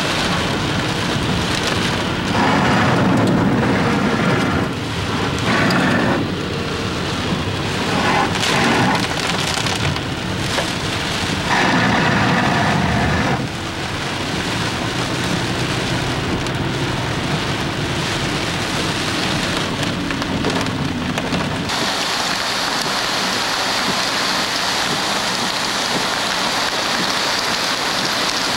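Heavy tropical-storm rain on a car moving along a wet road, swelling in several louder surges during the first half. About two-thirds of the way through it changes abruptly to a steady, even rush of rain and fast-running floodwater.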